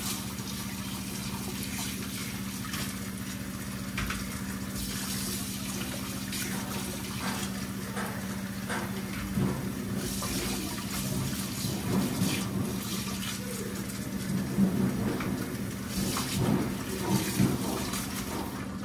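Kitchen tap running into a sink as peeled potatoes are rinsed under it by hand, with irregular splashes that are busiest in the second half. A steady low hum runs underneath.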